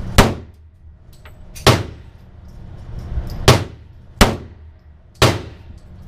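Five single pistol shots from a Sig Sauer 1911 in .45 ACP, fired at an uneven pace, each a sharp loud report with a short echo.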